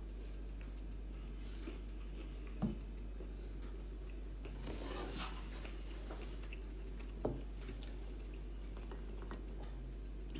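Metal fork clinking and scraping against a ceramic bowl of food while eating, with two sharper clinks a few seconds apart and softer scraping between, over a steady low hum.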